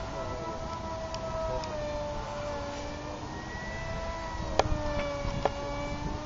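Electric park-jet motor and propeller of an RC plane in flight, a steady whine whose pitch slowly wavers up and down as it flies. A low rumble lies underneath, and two sharp clicks come near the end.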